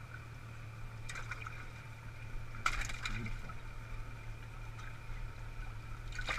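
Water sloshing and splashing in a boat's livewell as a hand reaches in among the fish, with a few brief splashes, the loudest about two and a half seconds in, over a steady hum.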